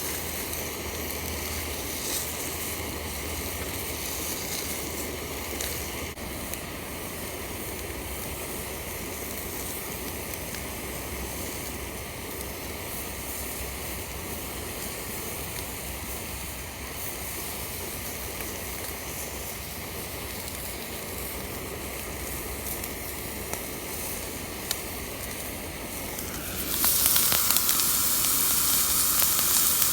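A steady hiss, then near the end a louder sizzling suddenly starts and holds: meat frying on a hot camp pan or grill.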